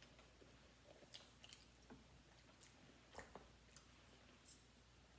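Near silence with faint eating sounds: chewing and a scattering of soft clicks and taps as fingers handle barbecue jerk chicken in a plastic takeout tray.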